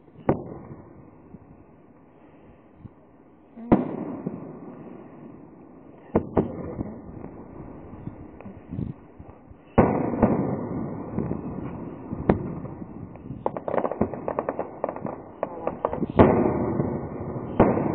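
Aerial fireworks shells bursting: about seven sharp booms a few seconds apart, each trailing off in echo, with a quick run of crackling reports about three-quarters of the way through.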